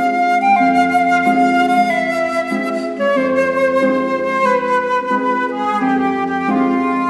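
Background music: a slow flute melody of long held notes gliding between pitches over soft, steady lower chords.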